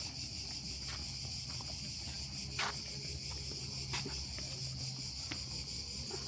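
Steady, high-pitched insect chorus droning without a break, with a few sharp clicks over it, the loudest about two and a half seconds in.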